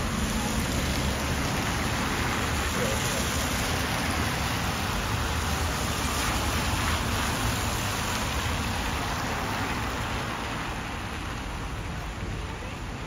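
Steady hiss of heavy rain over the low rumble of traffic on a wet road, easing a little near the end.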